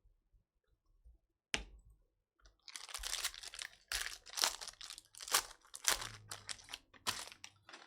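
Plastic trading-card pack wrappers being torn open and crumpled by hand: a sharp crackle, then a few seconds of dense crinkling and tearing.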